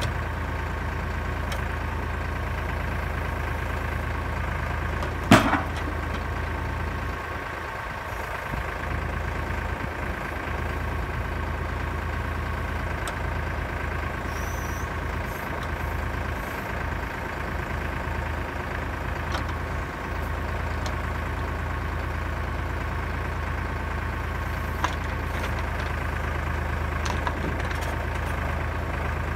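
Kioti tractor's diesel engine running steadily while it drives the log trailer's hydraulic crane loading logs, with a steady higher whine over the engine note. A single sharp knock sounds about five seconds in.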